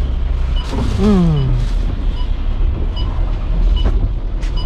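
Thaco coach's engine running with a steady low rumble, while a regular tick sounds a little faster than once a second, the turn-signal relay. About a second in, a short tone slides downward, and there are a few brief hisses.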